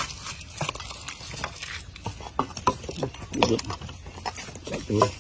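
Metal spoon clicking and scraping in a heavy black pan as roasted peanuts are tipped in and stirred through the food: a string of short sharp clicks and taps.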